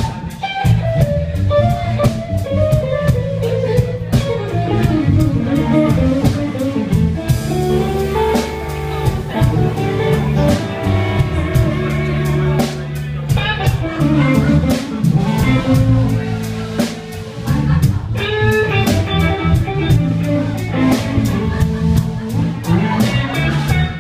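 A live blues band jamming: electric guitar playing melodic lines that slide in pitch, over bass guitar and a drum kit keeping a steady beat.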